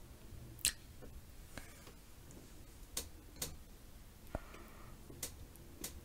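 Close-miked wet mouth clicks and lip smacks while eating a glazed donut: about seven sharp clicks at uneven gaps of roughly a second.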